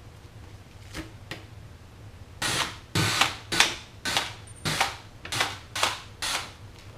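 Cordless drill run in about eight short bursts, roughly two a second, starting about two and a half seconds in, driving out the screws that hold a subwoofer speaker in its box. Two light clicks come about a second in.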